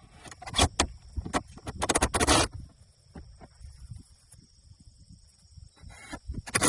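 A run of sharp knocks and clatters, loudest and most closely packed in the first two and a half seconds, then a few softer taps near the end.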